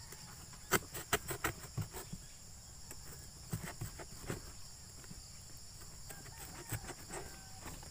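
Corrugated cardboard flap being pierced and torn open to make a hole: scattered crackling snaps and rustles, in clusters about a second in, again around four seconds and near seven seconds. A steady high insect chirring runs behind.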